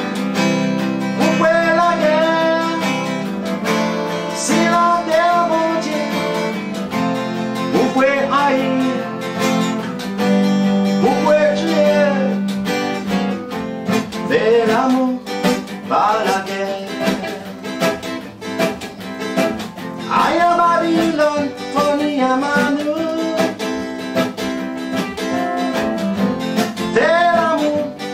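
Two guitars, one of them acoustic, strummed and picked together while a man sings a song over them, his held notes wavering in pitch.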